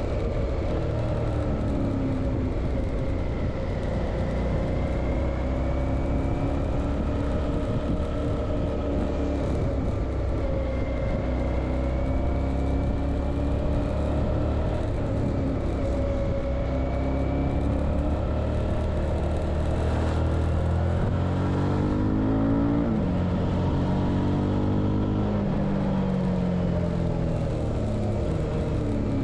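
Suzuki V-Strom 650's V-twin engine running under way, its note rising and falling with throttle and gears over a steady rushing noise. About twenty seconds in the pitch climbs sharply, then drops, and rises and falls once more.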